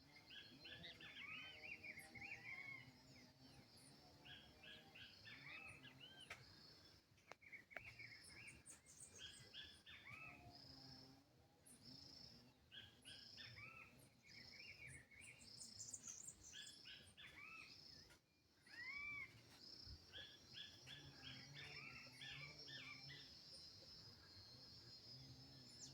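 Faint bird chirping: groups of short rising-and-falling notes repeating throughout, over a steady high-pitched hiss.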